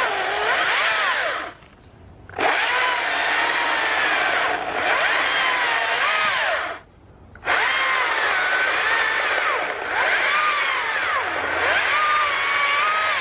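STIHL battery-powered electric chainsaw running and cutting log, its motor pitch sagging and recovering as the chain bites in. It cuts out twice briefly between runs. The owner takes the slowing to mean the saw lacks power when pushed hard.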